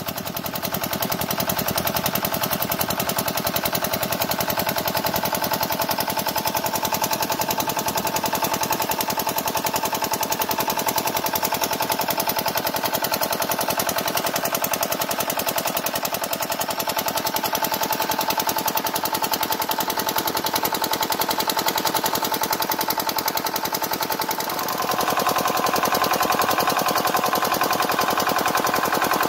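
5 hp diesel engine running steadily under load, driving a 16-paddle aerator through a long shaft, with a fast, even knocking beat. About 25 seconds in the sound grows a little louder.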